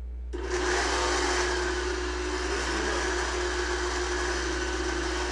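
Blender switched on about a third of a second in and running steadily, blending a smoothie.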